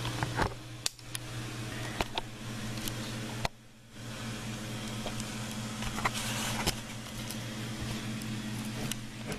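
A steady low hum with a few sharp clicks and knocks of handling scattered through it; the sound drops out briefly about three and a half seconds in.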